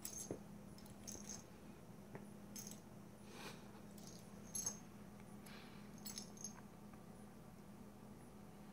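A cat's collar tag jingling faintly in short scattered clinks as the cats wrestle, the loudest a little past halfway, over a faint steady hum.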